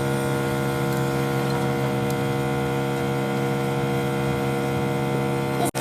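A steady mechanical hum with several even tones held at one pitch, cutting out for an instant near the end.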